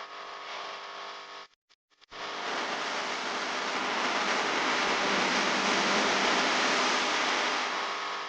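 A steady hiss with a faint hum under it. It cuts out abruptly to silence at about one and a half seconds, comes back at about two seconds and grows louder after that.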